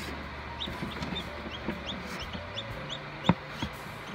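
Newly hatched chicks peeping: short, high, rising chirps, a few a second, over a low steady hum. A single sharp knock comes about three seconds in.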